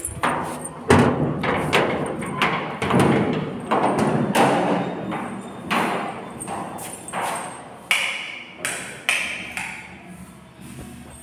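Footsteps: a run of thuds about twice a second, loud at first and getting fainter near the end.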